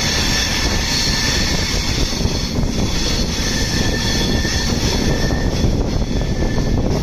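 Netravati Express passenger train running through a curve, heard from an open coach door: a steady rumble of wheels on the rails and rushing air, with faint high wheel squeal tones that come and go as the wheel flanges rub the curved rail.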